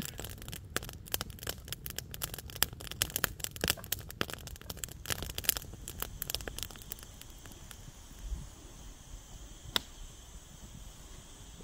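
Wood campfire crackling and popping, a quick run of sharp pops that thins out after several seconds, with one sharp pop near the end.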